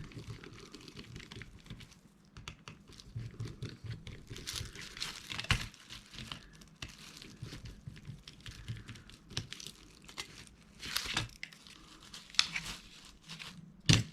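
Plastic mobile phone housing being worked apart by hand: irregular scraping, creaking and crackling of plastic with scattered clicks and a few louder snaps, the sharpest near the end.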